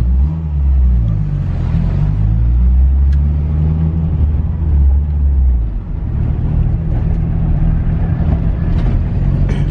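Engine of a turbocharged 3G Mitsubishi Eclipse heard from inside the cabin on the move. Its pitch rises and falls under throttle for the first five or six seconds, then it settles into steadier running. The owners say it is still struggling, though better, while they sort out its fuel pressure regulator on the stock ECU.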